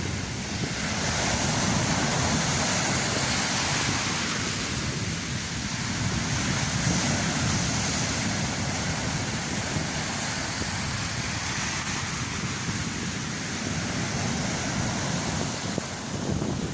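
Storm surf of the Black Sea breaking on a sand-and-pebble shore: a continuous rush of water that swells and eases with the waves.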